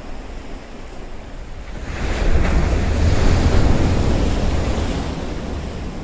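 Wind and surf. About two seconds in, a loud rush swells up with a deep rumble of wind buffeting the microphone, then eases off toward the end.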